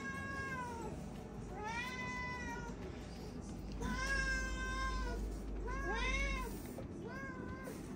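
Several house cats meowing repeatedly: about five drawn-out meows, each rising and falling in pitch, two of them overlapping in higher and lower voices about six seconds in.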